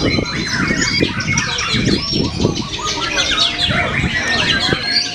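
White-rumped shama singing a fast, varied run of rising and falling whistles, over a rough low rumble of strong wind on the microphone.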